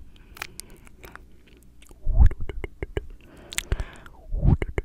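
Tongue clicks and wet mouth sounds made close to a microphone: a quick, uneven run of sharp clicks, with two louder, deeper puffs, one about two seconds in and one near the end.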